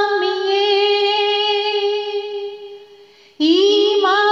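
A woman singing an Urdu naat with no instruments, holding one long note that fades out about three seconds in. After a brief pause she starts the next phrase with an upward slide.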